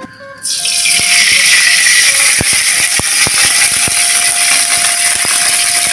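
Hot oil sizzling in a wok on a gas stove: a steady hiss that starts suddenly about half a second in, with a few light knocks of a metal utensil against the pan in the second half.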